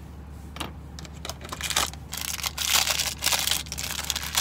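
Small blind-bag toy packaging being crinkled and torn open by hand: irregular crackling and rustling that begins about a second in and thickens about two seconds in.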